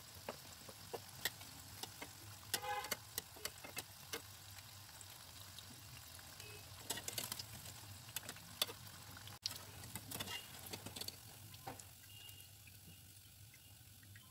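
Urad dal vadas frying in hot oil with a faint steady sizzle, and irregular metallic clicks and scrapes of a wire spider skimmer against the pan as they are stirred and lifted out.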